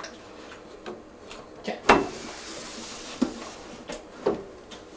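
Irregular knocks and clicks against a metal scent-detection board as a dog works along it with its nose in the holes, with one sharp loud knock about two seconds in.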